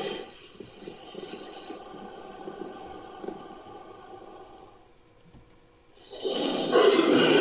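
Synthesized creature vocalization for Poposaurus, edited from animal recordings: a quieter low rasping growl that fades almost away, then a loud call starting about six seconds in.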